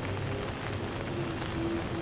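Steady rain falling, an even hiss of drops, with a faint low held tone underneath.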